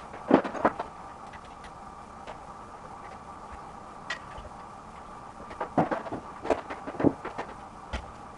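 Scattered clicks and knocks of parts being handled and fitted at the end of a bicycle handlebar: a few near the start and a cluster from about six seconds in, over a steady background hum.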